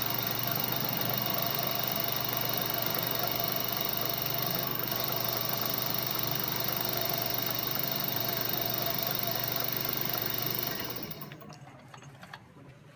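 Lathe running steadily, its motor and gearing giving a constant hum with several held tones. It stops abruptly about eleven seconds in, leaving a few faint clicks.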